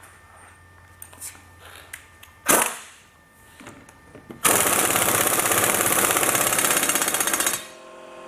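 Impact wrench hammering rapidly for about three seconds, running down and tightening the lock nut on a car-lift hydraulic cylinder's piston rod. A single loud knock comes about two and a half seconds in, before the wrench starts.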